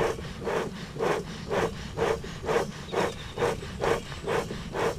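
Bee smoker bellows squeezed over and over, giving a steady run of airy puffs about two a second. The air is blown through burning pine needles to get them going and build a coal bed in the smoker.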